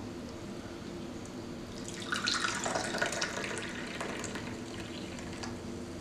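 Brewed filter coffee poured from a glass Kalita server into a small ceramic cup: a stream of liquid splashing and filling the cup, starting about two seconds in and tapering off near the end, over a low steady hum.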